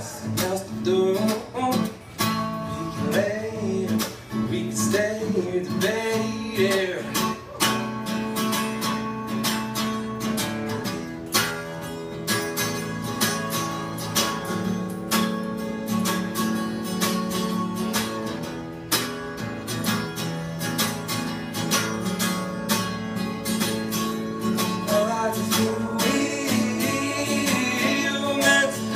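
Acoustic guitar strummed in steady chords, with a man singing over it during the first several seconds and again near the end. The middle stretch is guitar alone.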